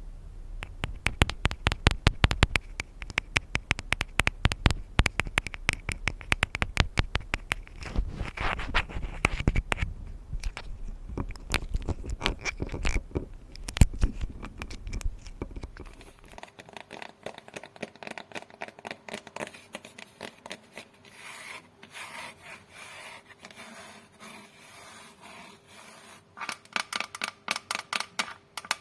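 Tapping and scratching on a glass coffee cup. There are quick, dense taps for the first half, softer scratching and rubbing from about sixteen seconds in, and then rapid tapping again near the end.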